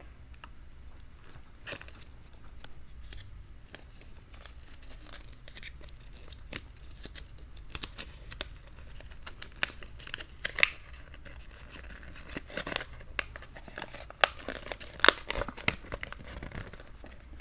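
Plastic and paper toy packaging crinkling and tearing as a blind-bag toy is unwrapped and its paper leaflet unfolded by hand, in irregular crackles with several sharper, louder ones past the middle and near the end.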